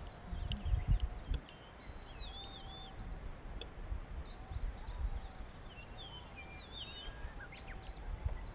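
Several birds chirping and warbling, with one lower drawn-out whistle among them, over wind rumbling on the microphone that gusts hardest in the first second and a half.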